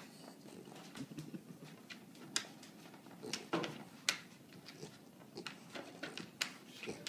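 Scattered light clicks and taps at irregular intervals over a faint rustle, from a French bulldog fidgeting with its claws on a wooden tabletop.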